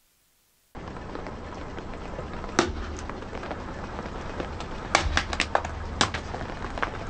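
Car tyre rolling slowly over hard plastic toys on asphalt, the plastic cracking and snapping under the weight in a series of sharp cracks, with a quick cluster of them about five seconds in. Underneath is a steady low rumble, which starts abruptly under a second in.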